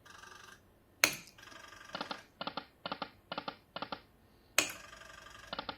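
Punters Choice Lightning Cash poker machine sound effects while the machine is played. A sharp electronic burst comes about a second in and again near the end. Between them is a quick run of short clicks, about two or three a second, as the reels stop one after another.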